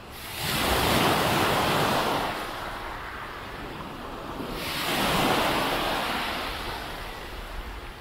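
Calm sea waves breaking on the beach twice, each wash swelling to a hiss and fading away over about two to three seconds.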